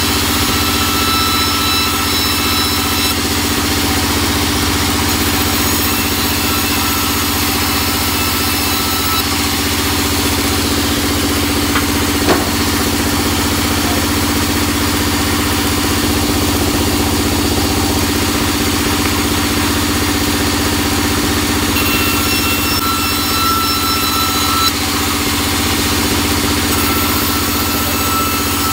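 Vertical band saw running steadily as it rips teak boards: a constant motor hum with a high blade whine that comes and goes as the wood feeds through, and a single knock about twelve seconds in. The teak is very hard and the blade feels blunt in it.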